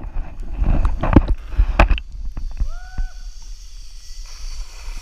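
Water sloshing and splashing around a camera held at the water's surface, loud and irregular for about two seconds, then quieter. A short high squeak comes about halfway through.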